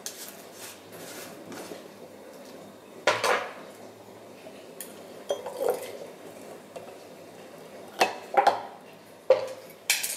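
A blender jug of thick green smoothie is tipped and poured into a glass mason-jar mug, with a series of knocks and clinks as the jug and glass are handled. The loudest clinks come about three seconds in and in a cluster near the end as the jug is set down on the counter.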